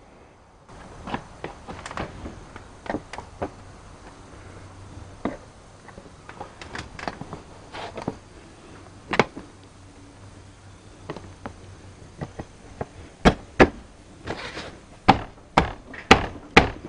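Motorcycle seat being fitted onto the frame: its plastic seat base knocks and clacks against the bike. Near the end come several louder, sharp knocks as it is pushed down into place.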